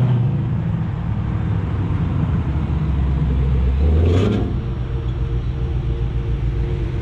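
Big-displacement V8 car engine idling with a deep, steady rumble, given a quick throttle blip about four seconds in before settling back to idle.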